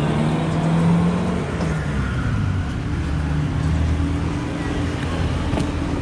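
Road traffic noise: a motor vehicle's engine running close by, a steady low hum.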